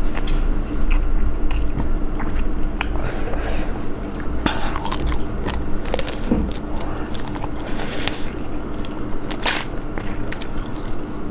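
Close-miked eating of spicy braised chicken feet: biting and chewing the skin and cartilage off the bones, with scattered sharp crunches and clicks. A steady low hum runs underneath.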